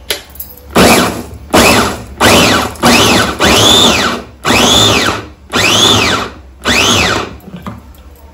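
Electric push-top vegetable chopper pulsed in about six or seven short bursts, each motor whine rising and falling as the blades spin up and coast down. It is chopping beetroot and green chillies, and the short pulses keep the pieces coarse.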